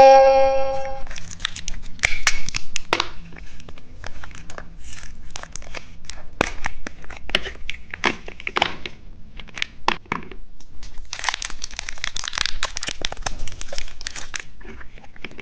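Plastic candy packaging crinkling and tearing in irregular crackles as a toilet-shaped novelty candy is handled and unwrapped. A short ringing tone sounds at the very start.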